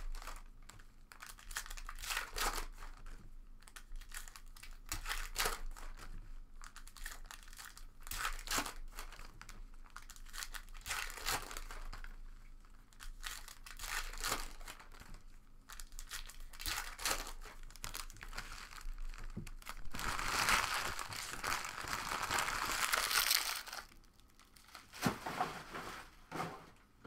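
Trading card pack wrappers crinkling and tearing as packs are opened by hand, in a run of short crackles. About twenty seconds in comes a longer, continuous rip of about three seconds.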